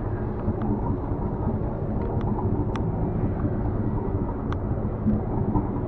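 Charter boat's engine running steadily under wind on the microphone, with a few light clicks over it.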